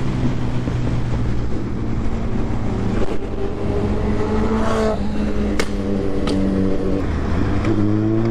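Kawasaki Z900's inline-four engine running at steady revs under way, with wind rush and a few sharp clicks in the middle; near the end the revs dip briefly and then begin to climb.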